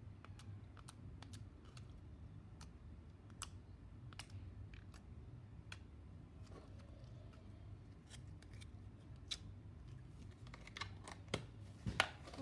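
Slime being squeezed and stretched by hand, giving scattered faint sticky clicks and pops, with a quicker run of louder clicks near the end.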